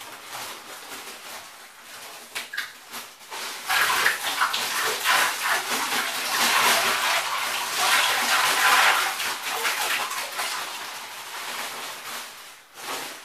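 Bagged ice cubes being emptied into a bathtub of cold water: a few scattered knocks and plastic handling at first, then about eight seconds of dense rattling and splashing of ice into the water, dying away near the end.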